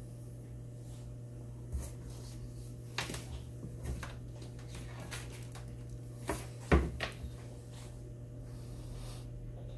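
Scattered knocks and clacks, about five in all, the loudest a sharp knock about two-thirds of the way through, over a steady low hum.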